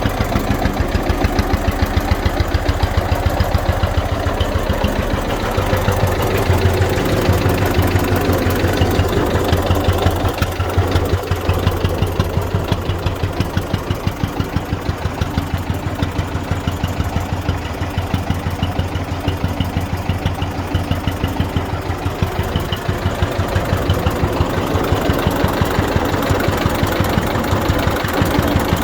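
1948 Zetor 15's single-cylinder diesel engine running steadily, its firing strokes an even train of thuds.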